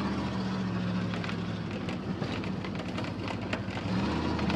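A vehicle engine running at a steady pitch, which shifts slightly near the end.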